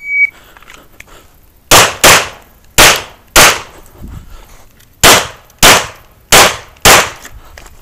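Shot timer's start beep, then eight pistol shots fired as four quick pairs (double taps), each pair about half a second apart, with a second or so between pairs.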